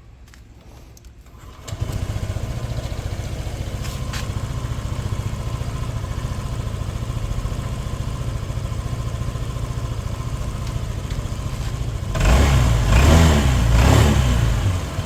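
Motorcycle engine starting up about two seconds in and idling steadily on freshly changed oil, then revved a few times near the end. It sounds noticeably smoother with the new oil.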